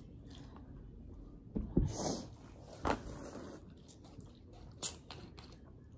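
People eating instant ramen noodles: chewing and slurping, with a few short, louder slurps about two, three and five seconds in.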